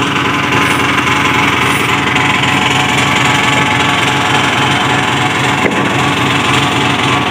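Engine of a TCM 3.5-ton forklift running steadily.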